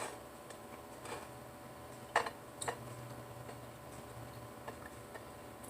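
A quiet room with a faint steady low hum and a few faint, irregular clicks and taps.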